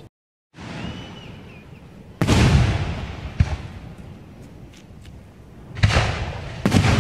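Aerial fireworks shells bursting: a series of sudden booms that fade away, the loudest about two seconds in, a smaller one a second later, and two more close together near the end.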